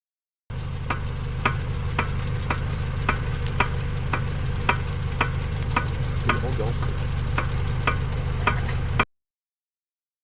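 Bad vehicle driveshaft making sharp metallic clicks, evenly spaced about twice a second, over a steady low rumble.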